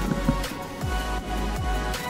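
Background electronic music with a steady beat of deep, falling bass hits under held synth tones.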